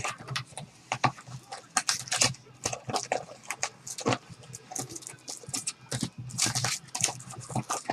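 Trading-card packaging being opened and handled: irregular crinkling and rustling of wrappers and cards, in quick uneven bursts. A low steady hum runs underneath.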